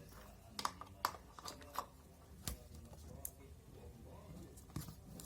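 Irregular light clicks and taps, about seven over five seconds, from small tools and plastic parts being handled while a handheld toy is worked on.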